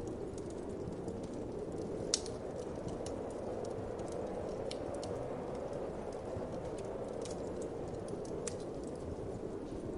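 Wood fire crackling with scattered sharp pops, the loudest about two seconds in, over a steady low whoosh of wind.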